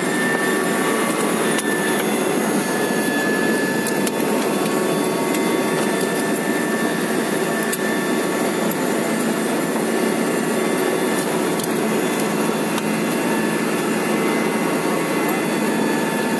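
Helicopter turbine engine and rotor running steadily, heard inside the cabin as a loud, even rushing noise with a faint whine.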